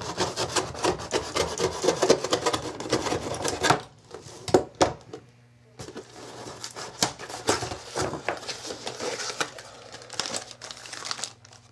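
Small cardboard mailing box being pried and torn open by hand: rapid scraping, rubbing and tearing of cardboard and tape against a wooden bench, with a brief lull about halfway. Near the end a paper envelope rustles as it is pulled out.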